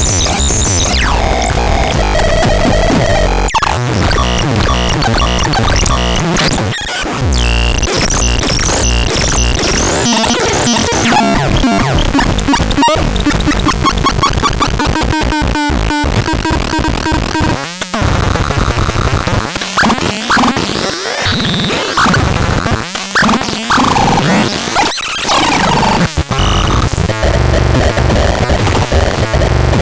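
Loud, chaotic electronic noise: harsh noise layered with shifting pitch sweeps and glitchy, stuttering tones. It breaks off for a moment a couple of times.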